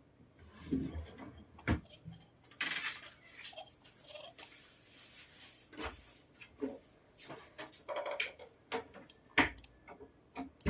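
Irregular clicks and knocks with short stretches of rustling: objects being handled at a computer desk.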